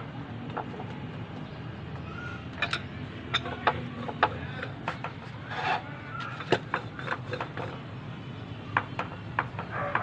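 Roti dough being patted by hand and then rolled out with a wooden rolling pin on a wooden board: irregular sharp taps and knocks, coming thicker in the second half, over a steady low hum.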